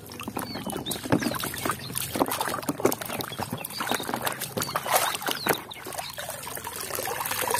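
Muddy water sloshing and splashing in a plastic basin as toy vehicles are swished and scrubbed through it by hand, with many small irregular splashes and clicks.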